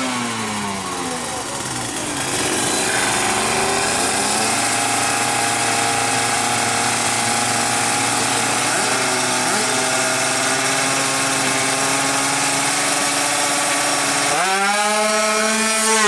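155cc two-stroke drag-bike engine revving. Its pitch falls over the first two seconds and then holds a steady high rev for about ten seconds. About fourteen seconds in it jumps higher and then wavers as the throttle is blipped.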